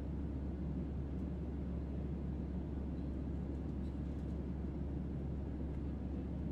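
Airliner cabin in flight: a steady low rumble with no change in level.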